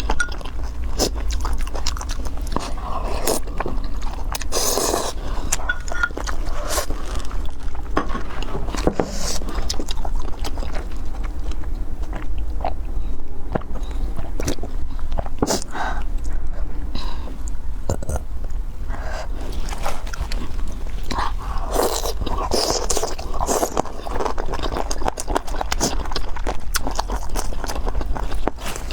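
Close-miked chewing and biting of food, with irregular wet clicks and smacks, over a steady low hum.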